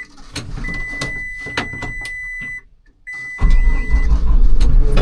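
An engine running, with sharp clicks and knocks and a steady high-pitched tone that breaks off and comes back. About two-thirds of the way through the engine noise jumps much louder.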